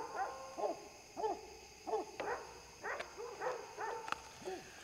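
A dog barking over and over, short barks at roughly two a second with uneven spacing.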